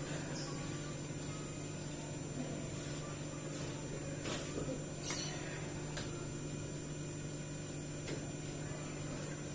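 Steady low hum with a faint high-pitched whine, and a few faint taps or rustles scattered through it.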